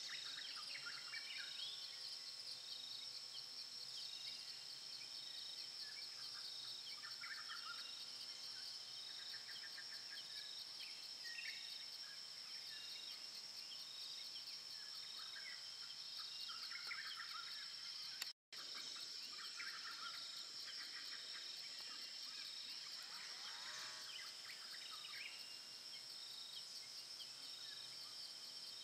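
Tropical rainforest ambience: a steady high insect drone with a second insect pulsing at a regular beat, and scattered bird calls throughout. The sound cuts out for an instant about two-thirds of the way through.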